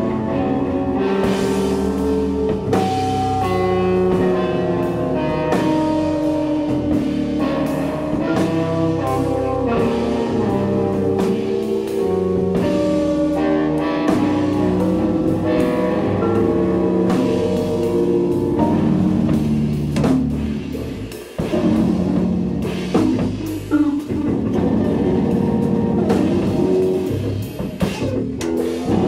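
Live rock band playing: drum kit, electric guitar and keyboard together, with a short drop in the music about three-quarters of the way through before the band comes back in with hard drum hits.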